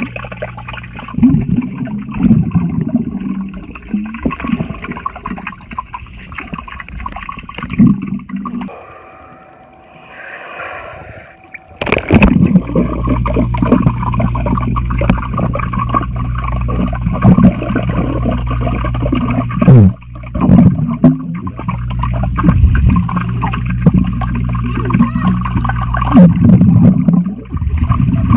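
Swimming-pool water heard underwater: muffled gurgling and bubbling with a low hum. A quieter stretch comes about nine seconds in, then a sharp knock near twelve seconds.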